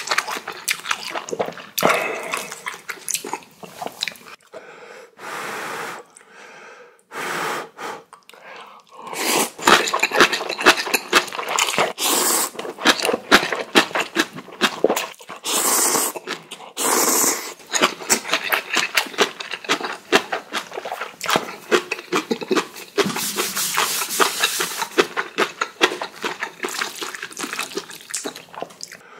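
Close-up eating sounds of instant ramen: wet, rapid slurping of noodles and chewing, in dense runs of short smacks through most of the second half. In the first part there are several longer hissing breaths or sniffs between mouthfuls.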